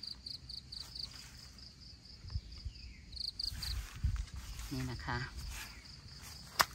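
An insect, a cricket, chirping in a run of short high pulses at one steady pitch, about five a second. The pulses fade after about a second and come back in a brief burst about three and a half seconds in. There are low bumps of handling noise and a sharp click near the end.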